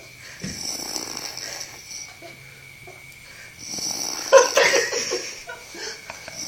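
A sleeping person snoring: a low, steady drone for about three seconds, then a louder, harsher snore about four seconds in.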